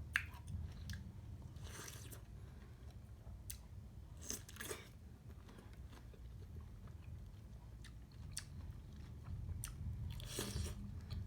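Close-up biting and chewing of juicy honey pineapple: four short crunchy bites, the last near the end, with small wet clicks of chewing between them over a low steady hum.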